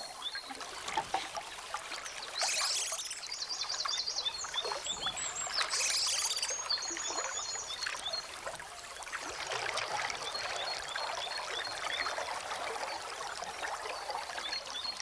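European otters splashing and churning the water of a pool as they wrestle and mate, with continual sloshing and sudden splashes. Two short runs of rapid high-pitched chirping come about two and a half and six seconds in.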